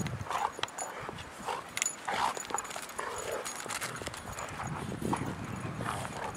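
Two dogs play-wrestling in snow: irregular crunching and scuffling of paws through the snow.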